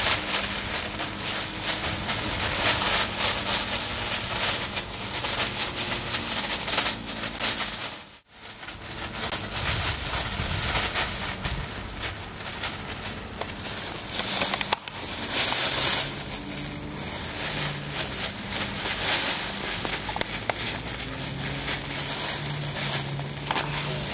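Crinkly metallic foil sheet rustling and crackling continuously as Pyrenean Shepherd puppies wrestle and roll on it, with a brief break about eight seconds in.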